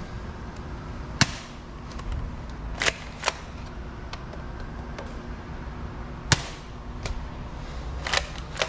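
Bug-A-Salt 3.0 salt gun being cocked and fired: about six or seven sharp snaps and clacks at irregular spacing, the loudest about a second in and again about six seconds in.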